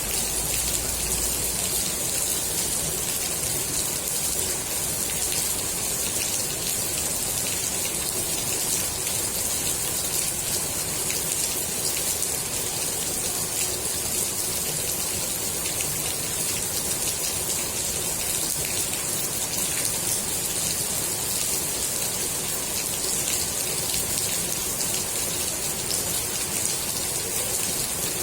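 Steady rain falling on the water of a swimming pool: an even hiss of countless drops pattering on the surface, without let-up.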